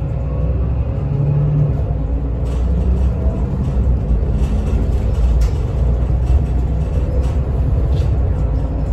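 Mercedes-Benz Citaro O 530 Facelift city bus under way, heard from inside at the front: a steady engine drone and road rumble, with a few faint clicks from the bodywork.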